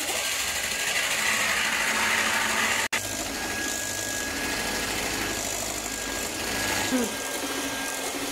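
Electric hand mixer running steadily, its beaters whipping cream in a stainless steel bowl, with a momentary dropout about three seconds in.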